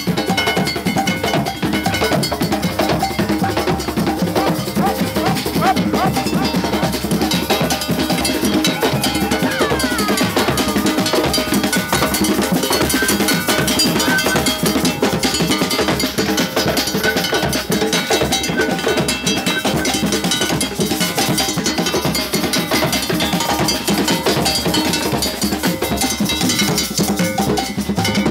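Loud, continuous percussion of dense, rapid clanking metal strikes like cowbells.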